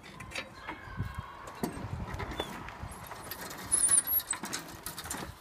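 Irregular metal knocks and clunks with some squeaking and scraping as a lawn mower's rear differential is worked loose and dropped out of the frame. The knocks come thicker and louder near the end.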